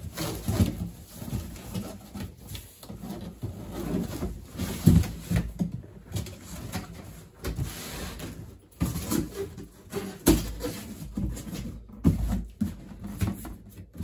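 Cardboard parcel box being folded and handled: flaps creased and pushed down along cut slits, giving irregular knocks, rustles and dull thuds.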